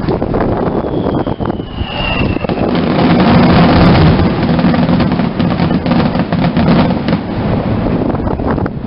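Fireworks finale: a dense run of shell bursts and crackling with no gaps, loudest about three to four seconds in. A thin whistle falling in pitch runs through the first couple of seconds.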